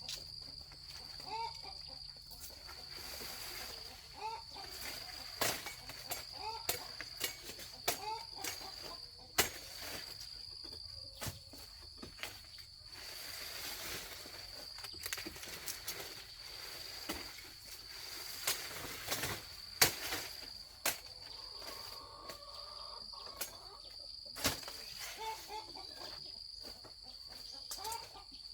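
Sharp, irregularly spaced chops of a blade cutting through sugarcane stalks, over a steady, pulsing, high insect drone and short repeated bird chirps.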